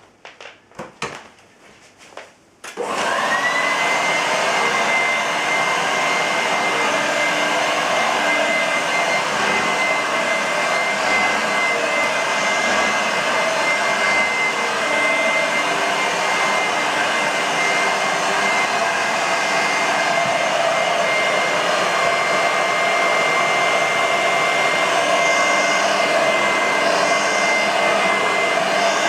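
A few clicks, then a Vorwerk VK-117 upright vacuum cleaner's 250 W bypass motor is switched on about three seconds in: a high whine rises quickly and settles into a loud, steady running sound.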